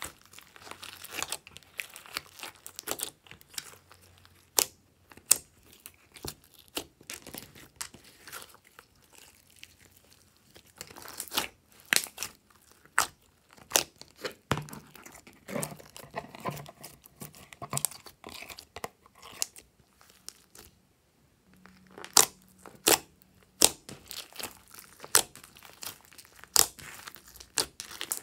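Hands squishing, pressing and stretching a large mass of slime mixed with small beads, giving irregular sticky pops, clicks and crackles as it is worked. There is a brief quieter stretch about two-thirds of the way through.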